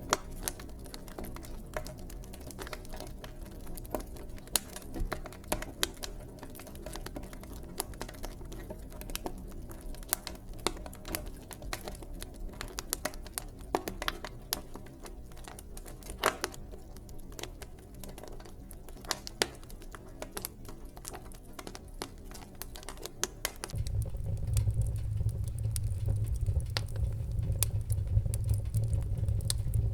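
Wood fire in a fireplace crackling, with many sharp irregular pops and snaps over a soft low rumble. About 24 s in, a deeper, louder rumble of the flames comes up under the crackling.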